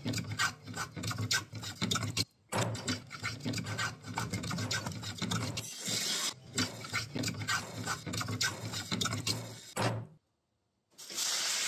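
Rapid, rhythmic strokes of hand tools on wood: saw, plane and scraping strokes in quick succession. They break off about ten seconds in, and after a brief pause a steady hiss follows near the end.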